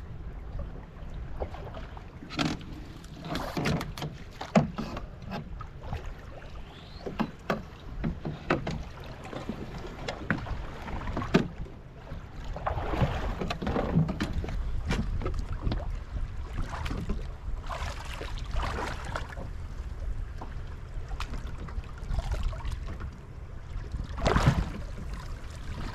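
Sea water lapping and slapping against the hull of a small fishing boat, coming in short splashy bursts over a steady low rumble, with scattered light knocks and clicks.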